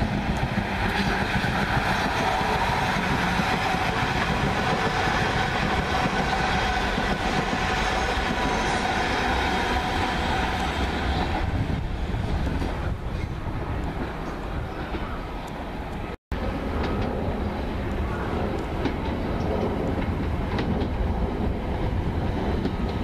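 A South Western Railway Class 444 Desiro electric multiple unit running along the tracks, with a steady whine from its traction equipment and the clickety-clack of wheels over rail joints; the whine fades about halfway through as the train draws away. After a brief cut, the rumble of a Class 455 electric multiple unit approaching.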